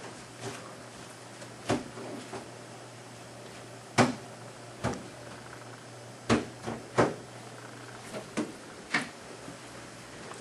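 A series of sharp knocks and clicks at uneven intervals, about a dozen, the loudest about four seconds in and two more a few seconds later, over a steady low hum.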